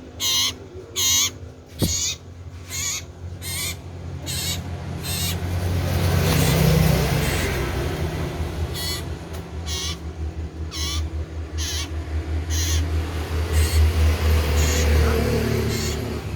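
Common iora (cipoh) calling loudly, a short note repeated about every half second. A low rumble swells and fades in the middle while the calls pause.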